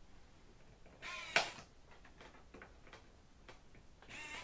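Small battery-powered pen-style electric screwdriver running in two short bursts, one about a second in and one near the end, driving small screws into an aileron control horn. A sharp click comes at the peak of the first burst, and faint ticks fall between the bursts.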